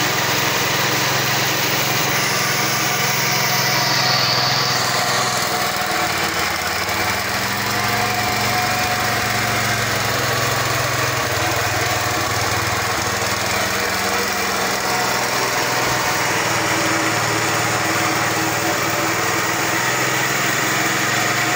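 Small stationary diesel engine running steadily, driving a belt-driven coffee pulper as coffee cherries are fed through it.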